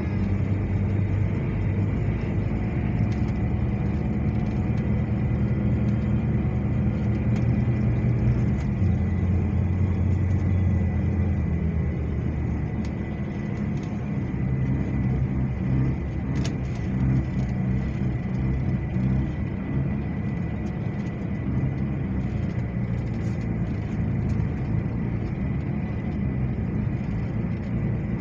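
Diesel engine of an intercity coach running at low speed, heard from inside the passenger cabin as a steady low drone whose note shifts a few times as the bus manoeuvres. A thin, steady high whine sits over it.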